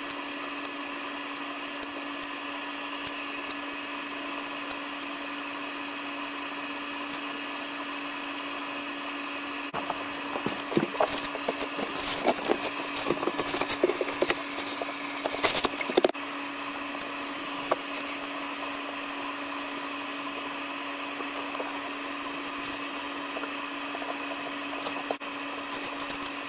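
A steady hum with a fixed tone, and from about ten to sixteen seconds in a run of knocks, taps and crackles as rigid foam insulation board is handled and fitted into a wall bay.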